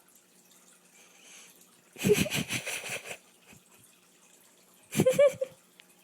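Cockatiel clearing its crop: a rough burst about two seconds in lasting about a second, then a shorter one about five seconds in that carries a brief pitched note.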